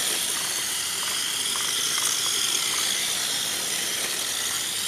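Electric RC drift car driving on cheap, low-profile drift wheels: a steady high-pitched hiss of motor, gears and sliding tyres, with a few faint ticks.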